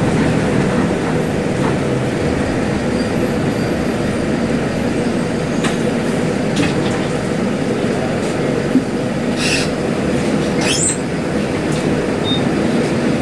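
Diesel engine of a Mercedes-Benz OF-1721L front-engined city bus running loudly with a steady drone. A few brief high-pitched squeaks come through around the middle.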